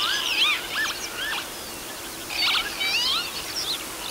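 Northern lapwings calling during their display flights: overlapping slurred whistles that sweep up and down, with a short buzzy note a little past halfway.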